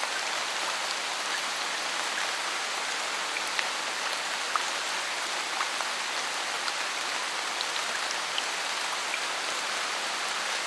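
Steady rain falling on forest foliage, an even hiss with scattered louder individual drips landing at irregular moments.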